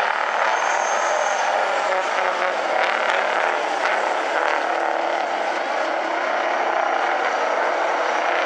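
A pack of racing big-rig semi-truck cabs running hard together at the start of a race, a loud, steady, unbroken engine drone.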